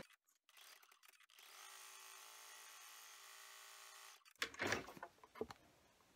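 Husqvarna Viking embroidery machine started with a button click, then running unthreaded with a faint steady whir for about three seconds as it needle-punches a cutting-guide line of holes. Near the end come sharp clicks and knocks from the hoop being handled.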